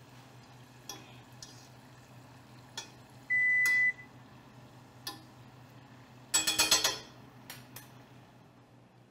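A metal utensil clicks against a saucepan of frying onion rings. One high electronic beep lasts about half a second a third of the way in. A short, rapid metallic rattle, the loudest sound, comes about six and a half seconds in.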